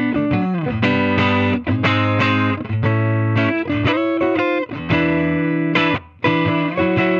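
Electric guitar played through an AmS Hurricane 20 combo amplifier: a run of chords struck and let ring, with a short break about six seconds in.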